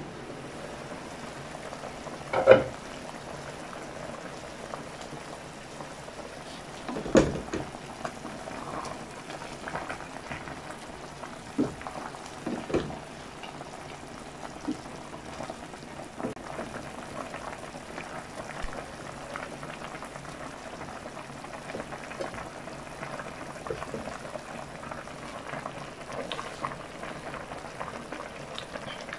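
Broth bubbling at a boil in a stainless steel pot, a steady hiss. A sharp clank about two seconds in as the glass lid comes off and is set down, then several softer knocks of a wooden spatula against the pot during stirring.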